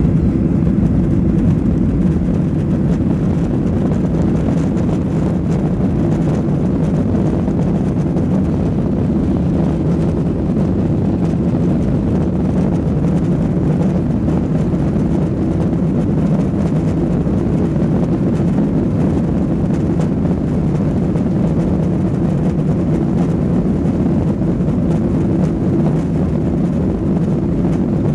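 Jet airliner's engines running at takeoff power: a steady, deep noise that holds without rising or falling.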